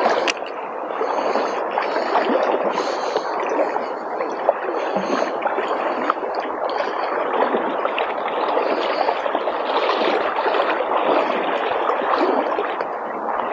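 Water gurgling and splashing steadily, a dense crackling rush of moving water.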